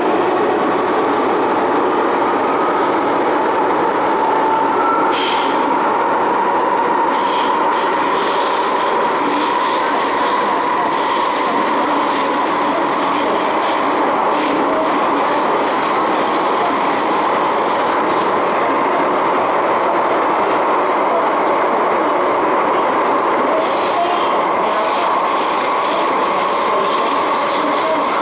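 MTR M-Train electric multiple unit running through a tunnel, heard from inside the car: a loud, even running noise with a steady high whine, and a few sharp clicks from the track about five seconds in and again near the end.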